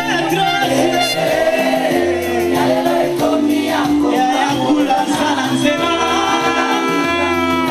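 Loud dance music with a singing voice, played without a break.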